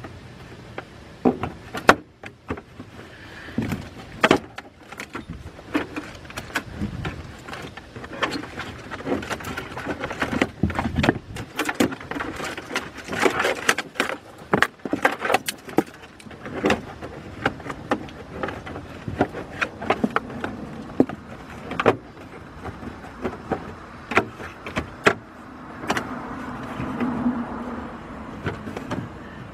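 Irregular clicks, knocks and rustling of a plastic trim panel being handled and hooked into place in a car's trunk area.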